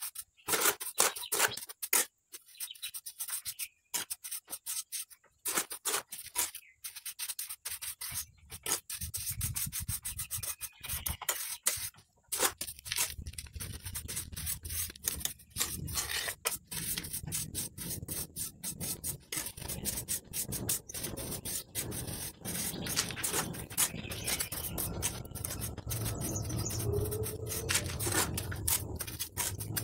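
Trowel spreading and smoothing wet cement mortar over a bowl mould: a rapid, irregular run of short scraping strokes.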